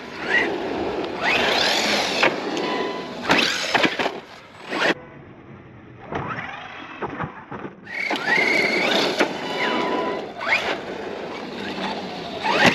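Arrma Outcast 4S RC truck's brushless electric motor whining, rising and falling in pitch in several bursts as it accelerates and slows, over the rush of its tyres on asphalt. There is a quieter stretch about five to eight seconds in.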